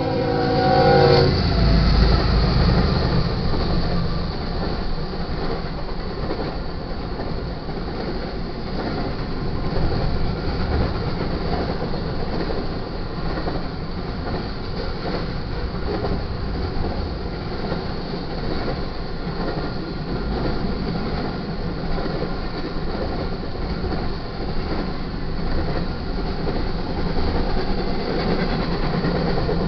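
A freight train's diesel horn ends about a second in as GE Evolution Series locomotives pass close by. Then comes the steady rumble and clickety-clack of a long intermodal train's cars rolling past.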